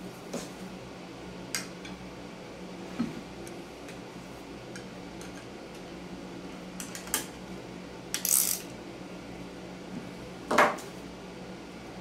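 Metal bracket and bolts clinking and knocking against an angle grinder's head as they are handled and fitted, a string of scattered clicks with a louder clatter near the end, over a steady low hum.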